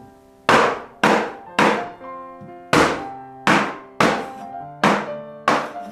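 Chinese cleaver chopping through lamb ribs on a wooden chopping board: about eight hard chops in an uneven rhythm, with a pause about two seconds in. Background music plays underneath.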